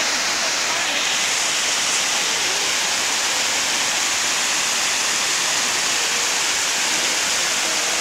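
Fast water rushing over a rock-slab waterfall: a steady, even rush of white water.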